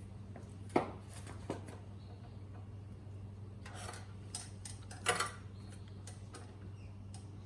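A few sharp clinks and clatters of tools or mower parts being handled, over a steady low hum.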